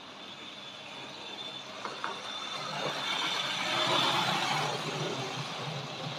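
Tri-ang model locomotive and coaches running on the track: a steady motor whirr with wheels rattling over the rails, with a couple of clicks about two seconds in. It gets louder as the train passes close about four seconds in.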